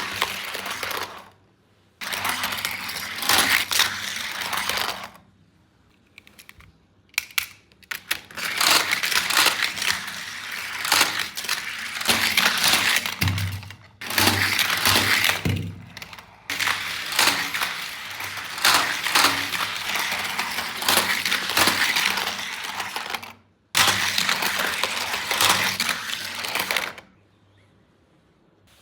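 Plastic and cardboard toy packaging handled and torn open, crackling and crinkling in stretches of a few seconds with short pauses between them.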